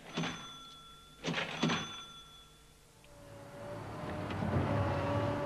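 Three short metallic clicks, each followed by a brief bell-like ring, near the start. Then, from a little past halfway, the engine and digging noise of an excavator in an open pit fades in and grows louder, with a steady hum.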